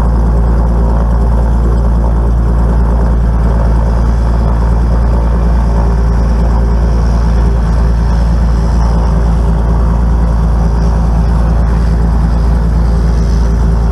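Velocity canard aircraft's rear-mounted pusher piston engine running at low power while taxiing, a steady low drone with no change in pitch.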